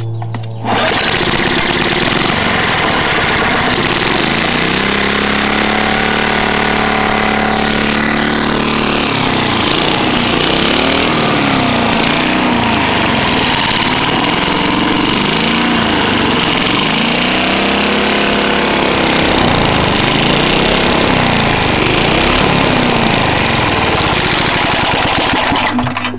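Tecumseh single-cylinder lawn mower engine running, its speed rising and falling over and over. The engine is worn out, with a bad carburettor, head gasket and piston, and burns a lot of oil.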